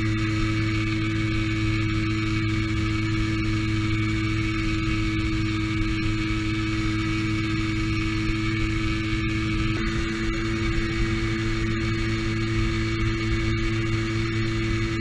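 Hercules K50 RL moped's 50 cc two-stroke single-cylinder engine running at steady high revs under way, heard from the rider's seat over a hiss of wind and road noise. Its note shifts slightly about ten seconds in.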